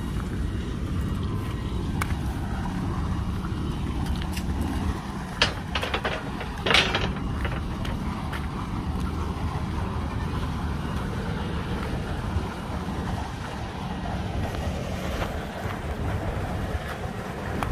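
Steady low rumble of wind on the microphone mixed with distant construction machinery, with a faint steady hum. A couple of sharp knocks come about five and seven seconds in.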